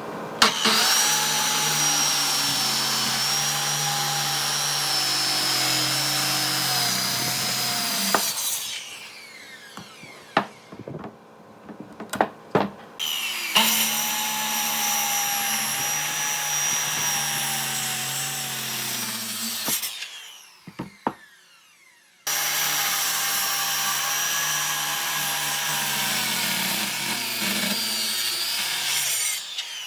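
A woodworking power tool runs on wood in three stretches of about seven seconds each, with a steady whine over its noise that winds down after each run. A few sharp knocks of wood being handled fall in the pauses between runs.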